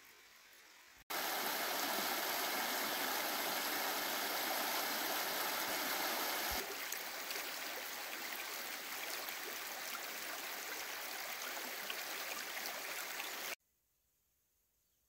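A shallow creek running over gravel and stones: a steady rush of water. It starts abruptly about a second in, drops somewhat in level about halfway through, and cuts off sharply near the end.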